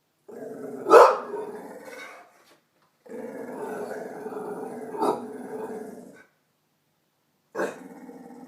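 Pit bull growling in three long stretches with short silent pauses between them. A loud sharp bark breaks in about a second in, with smaller sharp bursts about five seconds in and at the start of the third growl.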